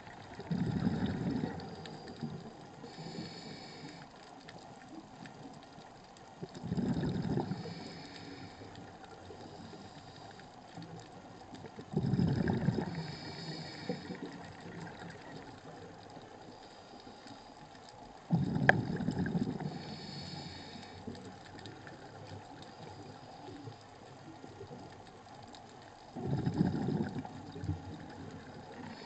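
Scuba diver breathing through a regulator underwater: five exhalations, each a burst of rumbling bubbles lasting about a second and a half, roughly every six seconds, with a fainter hiss of inhalation through the regulator in between.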